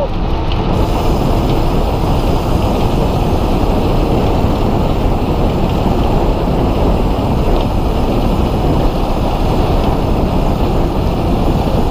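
Steady, loud wind rush over an action camera's microphone while a bicycle rolls along a concrete road, mixed with the hum of its tyres.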